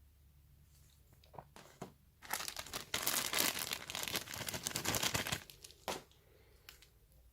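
Packaging crinkling and rustling as it is handled and pulled open in an unboxing, with a few scattered crackles, then about three seconds of dense crinkling, and a single sharp tap or knock near the end.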